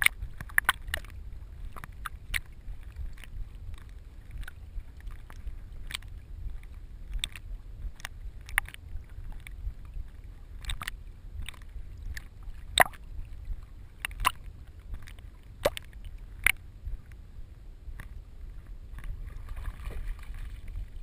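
Water sloshing and splashing close to a vest-mounted GoPro Hero2 in its housing as a retriever swims, with a steady low rumble and many sharp splashes from its paddling.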